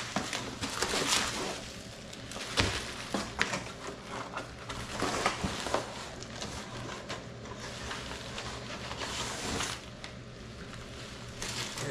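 Packaging being handled: bubble wrap crinkling and cardboard and paper rustling as a bubble-wrapped walking cane is pulled from its long shipping box, with scattered small knocks and crackles.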